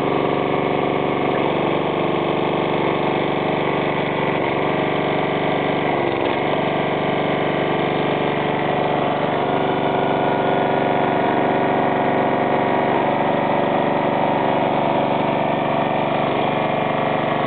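Loncin 159 cc, 5 HP single-cylinder four-stroke petrol engine of a hydraulic log splitter running at a steady speed.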